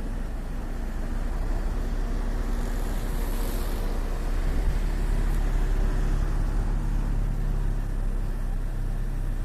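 Steady low engine rumble of a motor vehicle running close by, with a brief hiss about three seconds in.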